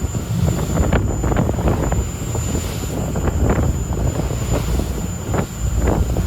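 Boat engine running while underway, with wind buffeting the microphone in gusts.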